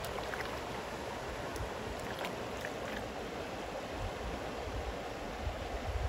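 Creek water rushing steadily, with an uneven low rumble of wind on the microphone.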